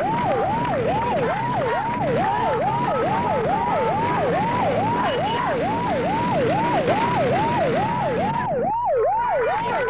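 Siren wailing in a fast repeating yelp, each cycle jumping up and gliding back down, close to three a second, over a steady haze of street noise. The background noise briefly drops out near the end while the siren carries on.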